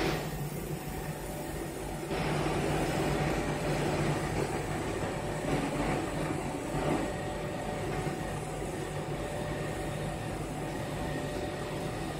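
Fabric laser cutting machine running as its head cuts printed sportswear panels: a steady mechanical hum and whir, a little louder from about two seconds in.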